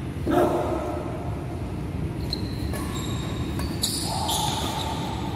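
Badminton doubles rally on an indoor court: shoes squeaking briefly on the floor several times, and a sharp racket hit on the shuttlecock near four seconds in.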